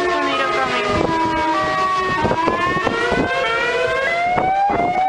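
Several outdoor warning sirens wailing across a city at once, their tones at different pitches overlapping and slowly rising and falling. A few thumps sound in the second half.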